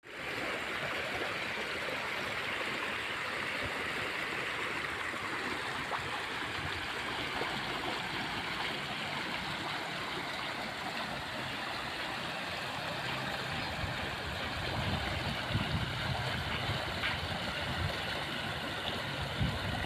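Muddy rainwater rushing and splashing along a swollen drainage ditch, a steady rush of water. From about fifteen seconds in a deeper, uneven rumble joins in.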